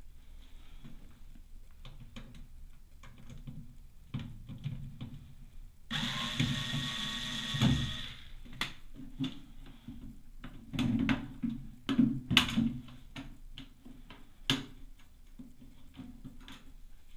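Clicks, knocks and clatter of work on an Atlant washing machine whose drain pump jams, with a brief whirring hiss lasting about two seconds, starting about six seconds in.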